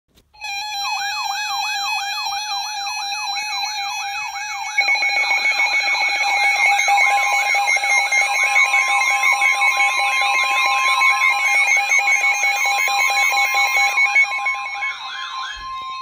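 Several weather alert radios sounding their warning alarms at once: a fast rising-and-falling siren warble over steady beeping tones, with more alarms joining about five seconds in and a long steady tone in the middle. The alarms cut off near the end.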